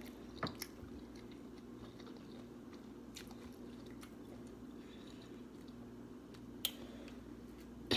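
Quiet close-miked chewing and mouth sounds of a person eating, with a few sharp clicks, the loudest about half a second in and another late on.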